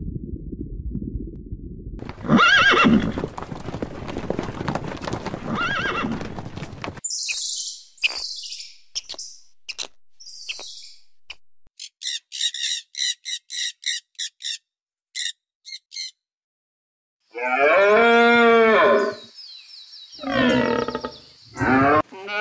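A string of different animal calls one after another, with short gaps between them: a low rumbling noise at first, then pitched calls that glide in pitch, a fast even run of short high notes, and near the end a loud, long call that falls in pitch.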